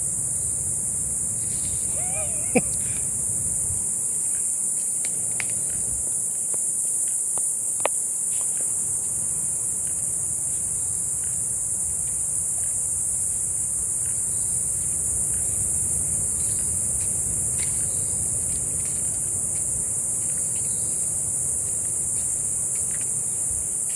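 A steady, loud, high-pitched drone of jungle insects. Scattered light clicks of footsteps on the trail run under it.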